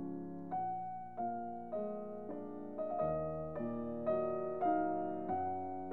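Background piano music: soft piano notes struck about every half second, each ringing and fading before the next.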